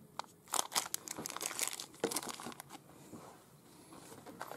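Plastic packaging bags crinkling and rustling as they are handled, in a busy cluster of crackles over the first few seconds, then fainter.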